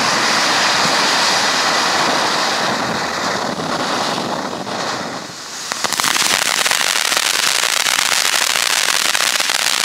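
Ground fountain firework hissing steadily as it throws sparks, fading out about five seconds in. About a second later a dense crackling of crackle stars starts and carries on.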